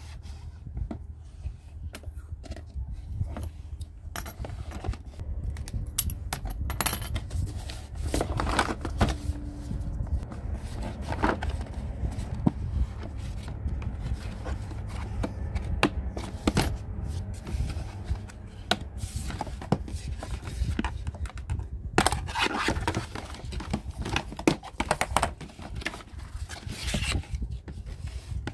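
Cardboard box and plastic packaging of a toy doctor-kit playset being handled and opened: irregular scraping, tearing and crinkling with scattered sharp clicks and taps, over a low steady hum.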